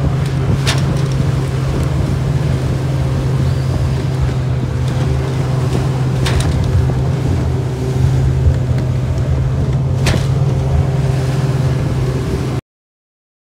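Outboard motor of a small open boat running steadily at cruising speed, with water rushing along the hull and a few sharp knocks. The sound cuts off suddenly near the end.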